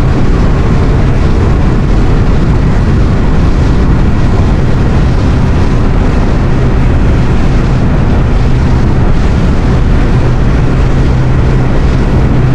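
Robalo R160 center-console boat running on open water: a loud, steady rush of wind and water with a low, even drone from its outboard motor underneath.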